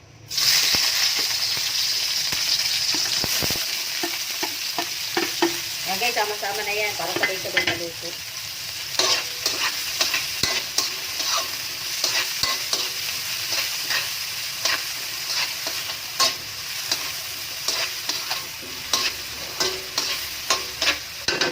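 Food sizzling as it fries in oil in a pan, stirred with a utensil that clicks and scrapes against the pan again and again. The sizzle is strongest at first and eases a little partway through, while the clicks of stirring grow more frequent.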